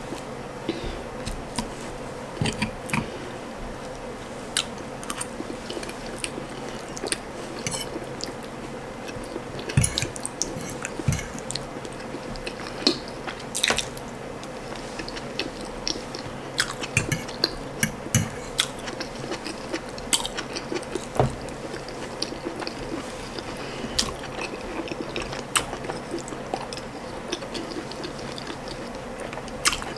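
Close-miked chewing and mouth sounds of someone eating ndole stew with soft boiled ripe plantain: irregular wet clicks and smacks over a steady faint hum.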